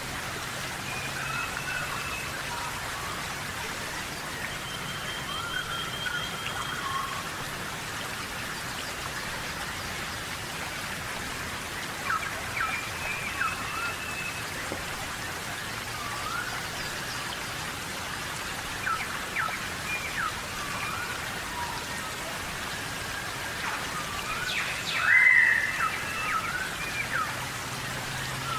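Steady tropical rainforest rain falling on foliage, with birds calling over it in short whistled, bending notes. The calls come now and then, and the loudest comes about 25 seconds in.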